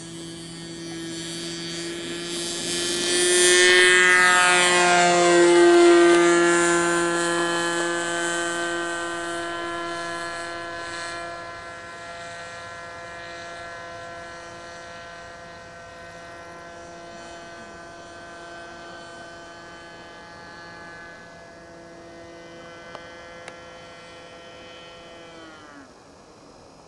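Radio-controlled model tug plane's motor and propeller running at high power while towing a model glider aloft, a steady multi-toned drone. It swells to its loudest about four to six seconds in, falling in pitch as the plane passes close, then fades slowly as it climbs away. Near the end the pitch drops and the motor winds down.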